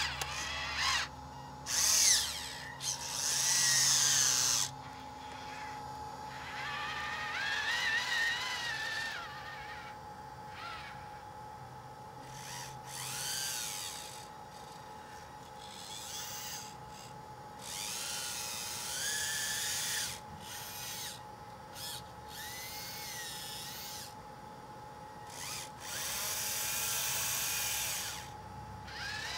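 Electric track-drive motors and gearboxes of a radio-controlled track loader whining in repeated bursts as it is driven, the pitch rising and falling with speed.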